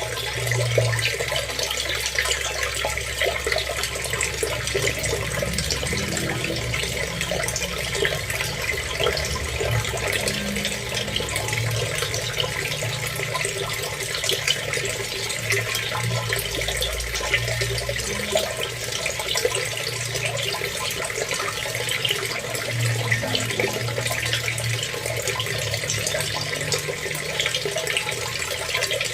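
Water running steadily, a continuous splashing hiss with no pauses.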